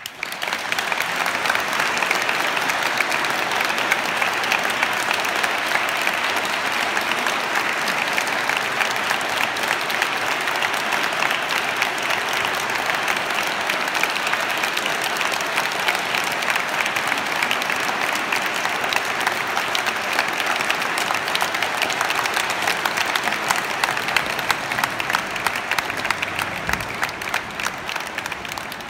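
Concert audience applauding, breaking out suddenly as the piece ends and carrying on as steady dense clapping, a little softer near the end.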